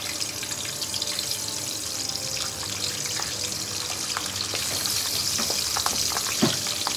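Parboiled pork belly slabs sizzling in hot oil as they are laid one by one into the pan, with clicks of metal tongs; the sizzle grows louder in the second half as more pieces go in.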